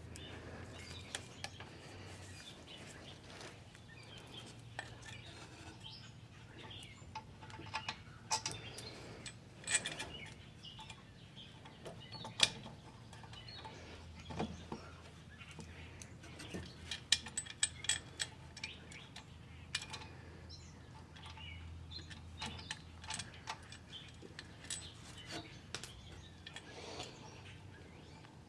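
Scattered light metallic clinks and taps as bolts, washers and a gasket are fitted by hand to an exhaust flange between a catalytic converter and muffler, over a low steady hum.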